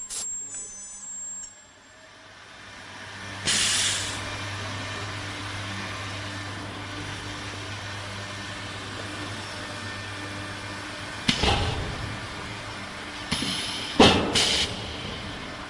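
Ultrasonic filter-bag welding machine running with a steady low hum, which stops about 11 seconds in. There is a short hissing burst about 3.5 seconds in, and a few sharp bursts of hiss and knocks near the end.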